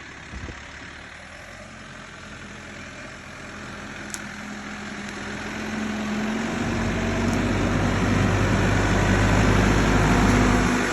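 Backhoe's diesel engine running as the machine approaches with a load, growing steadily louder through the second half into a low, heavy drone.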